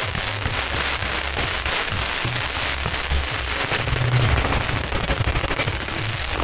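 Long strings of firecrackers going off, a dense, unbroken rapid crackle of pops, with the beat of background music underneath.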